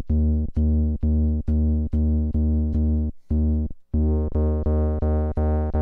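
Akai Rhythm Wolf's analog synth voice playing a repeating low square-wave bass note, about two notes a second, while the filter resonance is turned up. After a short gap just past halfway, the notes come back brighter.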